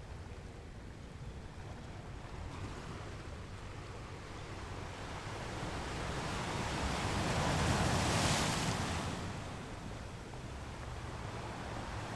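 Sea waves: a steady wash of surf, with one wave swelling up, breaking about eight seconds in, and receding.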